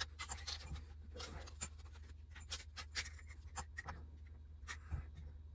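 Irregular light clicks and scrapes of engine parts and tools being handled during the fitting of a two-stroke dirt bike's cylinder, over a steady low hum.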